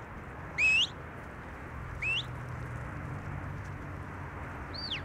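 Sheepdog handler's whistle commands to a working border collie: a loud rising whistle about half a second in, a fainter rising one about two seconds in, and a rising-then-falling whistle near the end.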